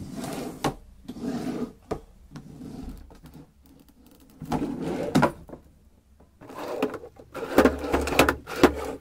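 Drawers of a wooden chest of drawers being pulled open one after another: repeated sliding rumbles, each ending in a sharp knock. The loudest cluster of slides and knocks comes near the end.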